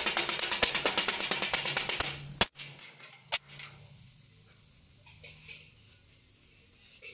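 Metal kottu blades chopping roti on a flat-top griddle: rapid, even metal clanging that stops about two seconds in, then two single clanks.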